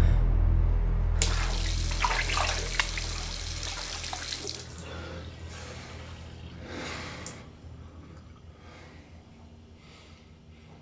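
Water running from a bathroom sink tap for about three seconds, then easing off, with a shorter splash of running water near the end. A low steady hum fades out under it.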